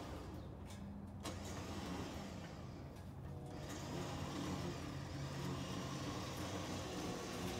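Small vehicle engine idling with a steady low hum, most likely the Frandee SnoShu snowcat's engine running before it moves off the trailer.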